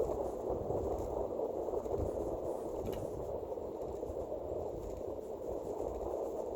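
Steady, muffled rush of wind and rolling noise from riding an electric kick scooter.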